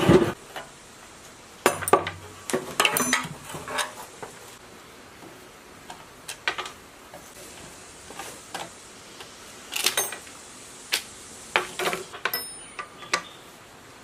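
Socket wrench and extension bar clicking and clinking against metal as the bolts on a petrol generator's alternator end cover are undone, with scattered metal clinks of tools on the bench. There is a knock at the start, then irregular clicks in small clusters.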